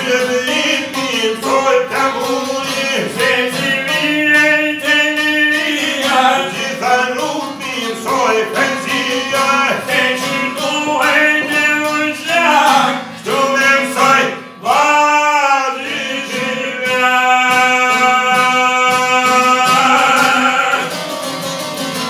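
Male Albanian folk singing accompanied by a plucked long-necked lute. The voice bends through ornamented phrases, breaks off briefly about two-thirds of the way in, then holds one long note near the end.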